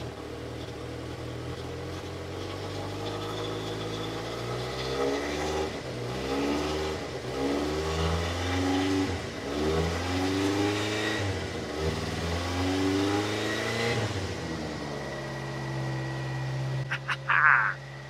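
Subaru Sambar kei truck engine running just after starting on a replacement carburetor, which shows its crank-no-start was a carburetor fault. It idles steadily, then its speed rises and falls about once a second for several seconds before settling back to a steady idle.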